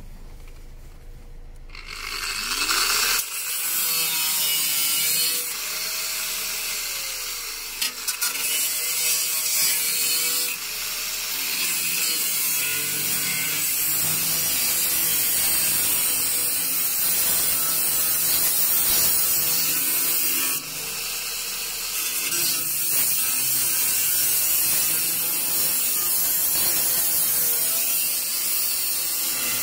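Angle grinder with a cutting disc cutting through the car's sheet-steel rear seat back panel, starting about two seconds in; its motor pitch wavers as the disc bites, with brief dips in the cut.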